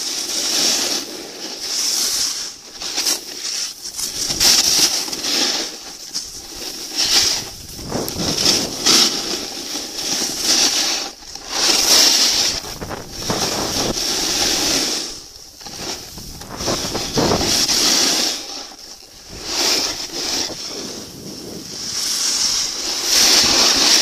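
Wind buffeting the microphone, with the hiss of sliding over snow, swelling and dropping every second or two.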